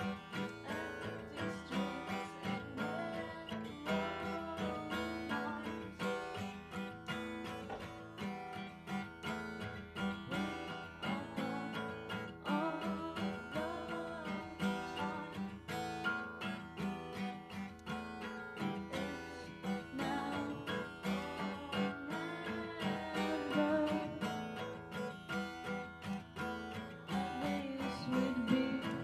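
A song played with strummed acoustic guitar at a steady pulse, with a gliding melodic line over it.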